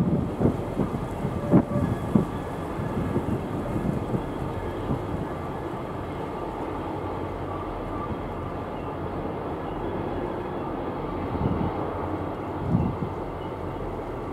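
Train rolling past on the rails: a steady low rumble with a few scattered knocks and clanks, louder in the first couple of seconds and again near the end.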